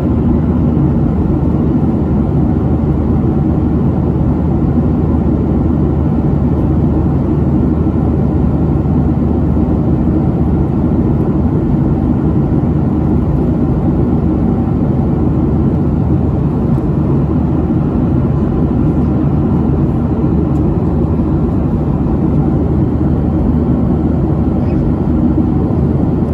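Steady low rumble of a Southwest Airlines Boeing 737's jet engines and rushing air, heard inside the passenger cabin.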